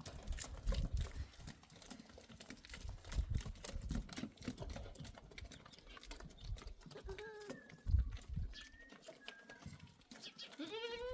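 Scattered knocks and shuffling, with a short animal call about seven seconds in and a single bleat from a sheep-sized farm animal near the end, its pitch rising then falling.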